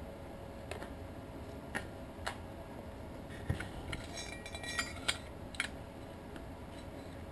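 Scattered light clicks and a short clattery rattle of metal being handled, bunched about four to six seconds in, over a faint steady hiss.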